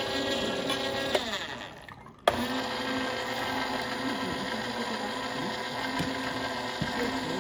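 Sharp Healsio Juicepresso slow juicer running with a steady motor hum as its screw presses mandarin oranges. The hum winds down and drops out a little over a second in, then starts again with a click about two seconds in.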